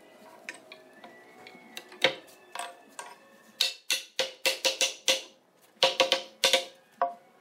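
Hardwood rail being knocked down into the slots on top of turned wooden table pedestals: more than a dozen sharp wooden knocks with a short ring, starting about two seconds in and coming in quick runs.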